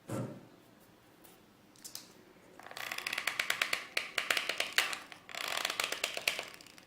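Hot glue gun worked by hand: a knock, then a dense run of fast ratcheting clicks in two stretches as the trigger is squeezed to push the glue stick through and the glue comes out heavily.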